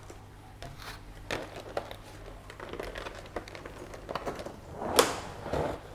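Black plastic plant trays and pots being handled and moved on a wooden table: scattered light clicks and crinkling, with a sharper knock about five seconds in.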